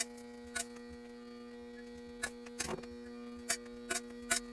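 Steady electrical hum with about eight light clicks and taps scattered irregularly through it.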